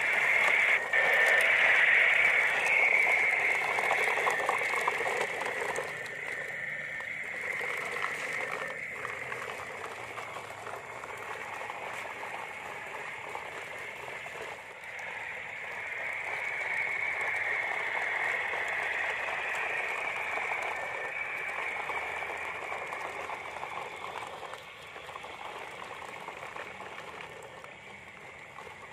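A toy RC dump truck towing a line of plastic toy trucks over concrete paving blocks. Its small electric motor whirs and the plastic wheels roll with a steady, rough hiss, loudest in the first few seconds and growing fainter near the end.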